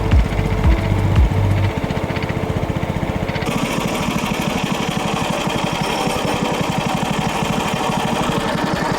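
Small river boat's engine running steadily with a fast, even putter, the boat under way.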